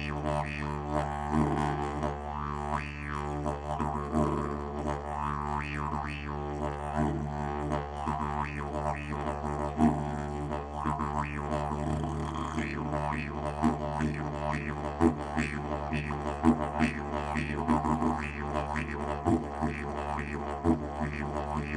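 Didgeridoo music: a steady low drone with rhythmic sweeps in tone over it.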